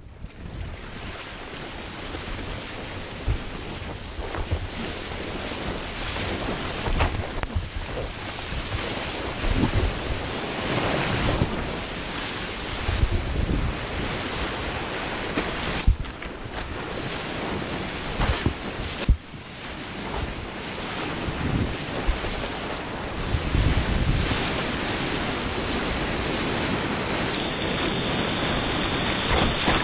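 Fast river water rushing and splashing around a bodyboard on a standing wave, close to the action camera's microphone, with wind buffeting it. A couple of sharp knocks a little past halfway.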